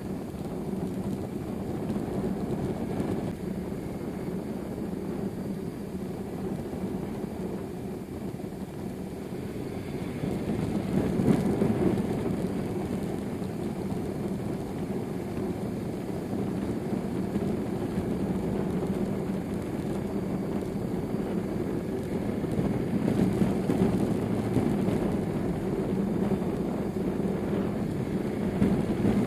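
BMW R1100RS's flat-twin boxer engine running under way, heard from on board the motorcycle. The engine note is steady, with a brief rise in loudness about eleven seconds in.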